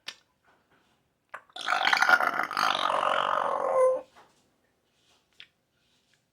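Parrot giving one long, harsh, buzzy vocal sound lasting about two and a half seconds, starting about a second and a half in and ending on a falling note.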